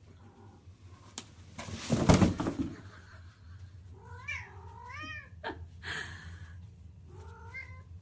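A loud thump and rustle about two seconds in, then a cat meowing twice, with a fainter meow near the end.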